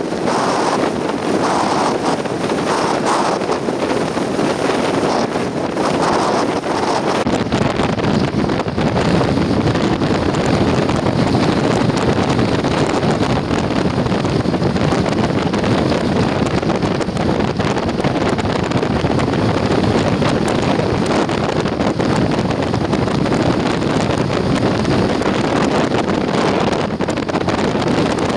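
Strong wind buffeting the microphone, a loud, dense, steady rush with a few surging gusts in the first several seconds.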